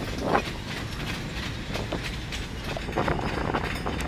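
Gravel hopper cars of a long freight train rolling slowly past, their wheels clicking irregularly over the rail joints over a steady low rumble.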